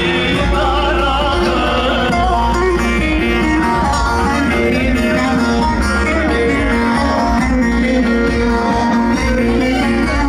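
Kurdish wedding dance music played by a band: a melody with a singing voice over a steady low beat, loud and continuous.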